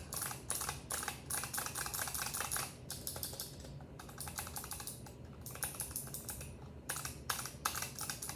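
Rapid typing on a mechanical gaming keyboard with fast switches: dense runs of key clicks broken by short pauses, about three seconds in, four seconds in, five seconds in and near seven seconds.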